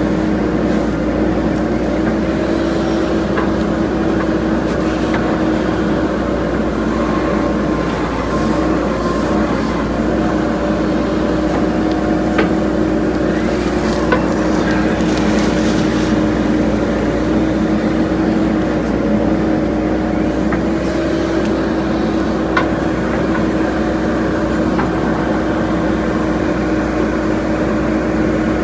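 JCB 3DX backhoe loader's diesel engine running steadily, with a few short knocks scattered through.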